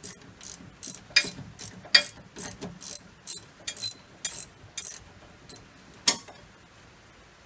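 Hand ratchet wrench clicking in quick strokes, about three clicks a second, as it turns a brake caliper bracket bolt. The clicking stops about five seconds in, and one louder click follows about a second later.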